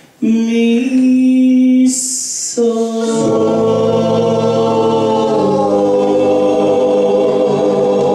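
Male a cappella doo-wop group singing: one voice holds a note, a sung 's' hisses about two seconds in, then the whole group with a bass voice comes in on a sustained closing chord.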